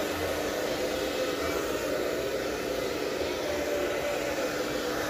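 Handheld hair dryer running steadily, blowing on a dog's wet fur after its bath: an even rush of air with a faint steady hum underneath.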